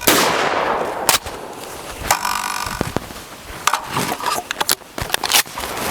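A Winchester Model 12 pump shotgun fires one shot right at the start, with a long echo fading out after it. Sharp metallic clicks and a short clatter follow, from the slide action being worked.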